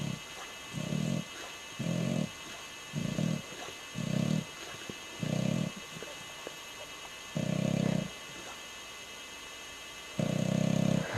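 English Bulldog snoring in its sleep: short snores about a second apart, then two longer, drawn-out snores with pauses between them, the last near the end.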